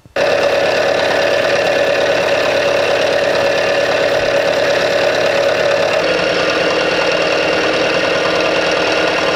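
Milling machine with a 20 mm roughing end mill cutting steel: a loud, steady cutting whine with a rough chatter, starting abruptly just after the start and shifting slightly in tone about six seconds in.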